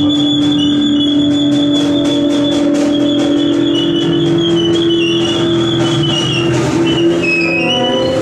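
Free-improvisation ensemble playing a dense, loud texture: a steady low drone held most of the way through, with high sustained tones above it that shift pitch, and a fast run of clicks or taps through the first half.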